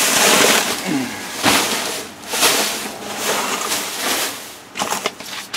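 Plastic bags and bubble wrap rustling and crinkling in uneven surges as trash in a dumpster is rummaged through.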